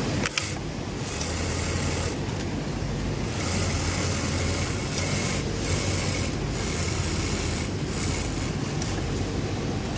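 Sewing machine running in stretches of one to two seconds that start and stop, over a steady low machinery hum.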